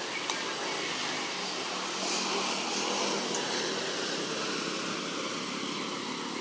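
Distant engine noise: a steady rush that swells about two seconds in and then slowly fades.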